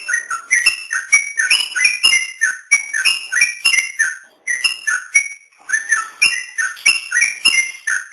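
Yellow-vented bulbul (trucukan) singing a rapid, unbroken run of bubbly whistled notes, with a couple of short breaks about four and five seconds in.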